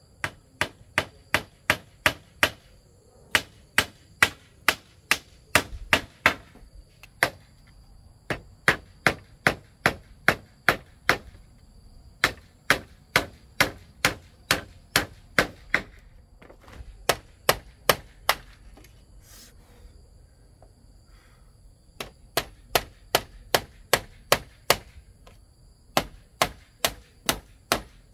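Rhythmic chopping, a blade striking a hard surface about three times a second in runs of several seconds with short pauses between, and a longer break a little past the middle.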